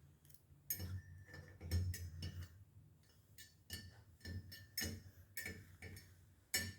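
Irregular light metallic clicks and taps, some with a dull knock, as small steel valve spring shims are worked loose from an aluminum cylinder head. Some shims are stuck in place by hardened cleaning chemical.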